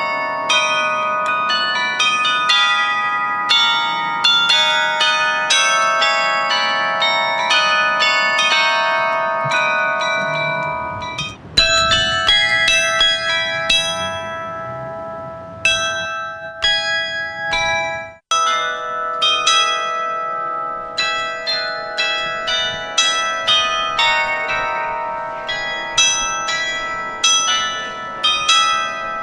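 Tower bells ringing, struck one after another in quick succession so that their ringing tones overlap. The ringing breaks off abruptly and starts again twice, about 11 and 18 seconds in.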